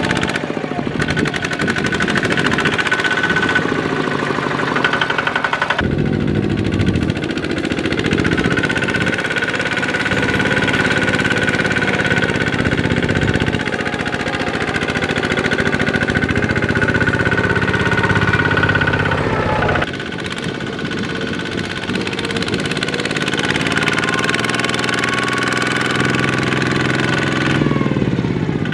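Kubota walking tractors' single-cylinder diesel engines running hard under load, hauling rice-laden trailers through soft mud. The sound is continuous, and its character changes abruptly twice, about 6 and 20 seconds in.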